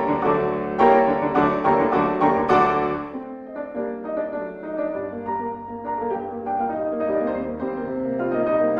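Background piano music: dense, loud chords for about the first three seconds, then a softer, slower passage of held notes.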